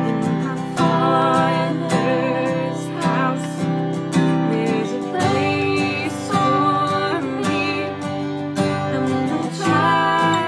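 Worship song: women's voices singing over a strummed acoustic guitar and a violin.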